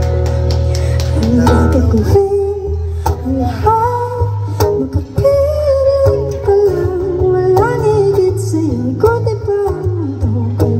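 A woman singing into a microphone over her own strummed acoustic guitar, amplified through PA speakers, with a strong steady bass underneath.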